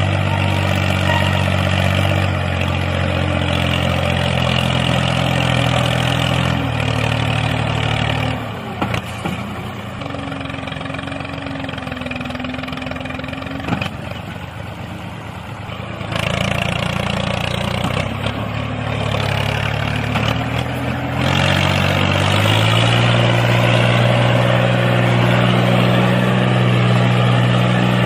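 Steady engine-like drone of a miniature tractor, a low hum whose pitch steps down and up several times. It is quieter through the middle and comes back louder for the last few seconds.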